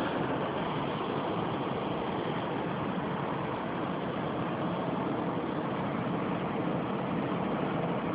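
Steady rushing noise of blizzard wind, even and unbroken.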